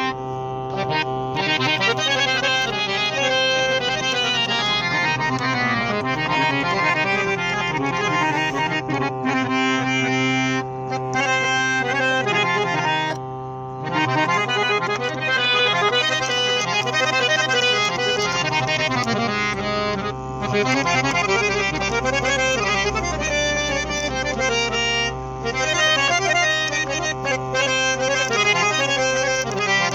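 Indian harmonium playing a raag melody over a steady held drone, with a brief break in the sound about 13 seconds in.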